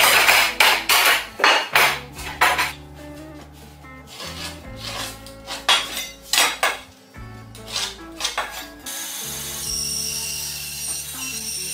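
Wooden boards clattering and knocking in quick bunches as they are slid and laid on a wooden workbench. About three quarters of the way in the knocks stop and a band saw is heard running steadily.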